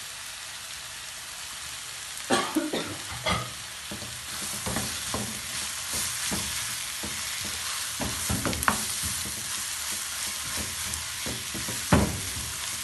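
Chicken masala frying with a steady sizzle in a non-stick wok as it is bhuna-fried, while a wooden spoon stirs it with irregular scrapes and knocks against the pan. The stirring starts about two seconds in, with a sharp knock near the end.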